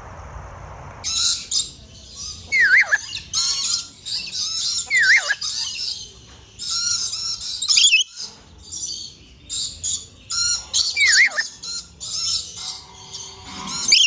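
Many birds calling over one another in high, harsh chatter that starts about a second in, with a dipping whistled call repeated three times.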